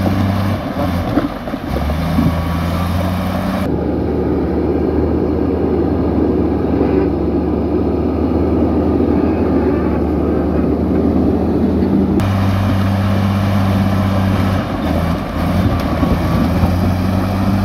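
Komatsu crawler bulldozer's diesel engine running steadily as the machine pushes soil and rocks. The sound changes abruptly about four seconds in and again about twelve seconds in.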